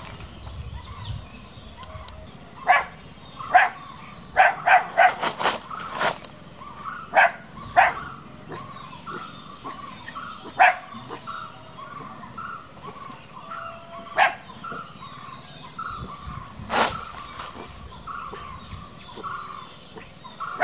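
Groenendael Belgian Shepherd puppies barking in short, sharp barks. There is a quick run of barks a few seconds in, then single barks every few seconds. A steady insect buzz runs underneath.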